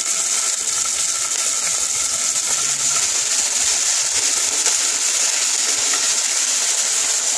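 Ginger paste and chopped green chilli sizzling in hot mustard oil in a nonstick wok as they are stirred with a wooden spatula, a steady hiss.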